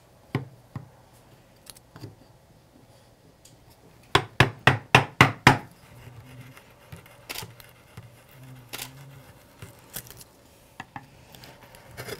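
Mallet blows on a chisel cutting into a walnut spoon blank: a couple of single knocks, then a quick run of about six blows near the middle, then scattered lighter taps.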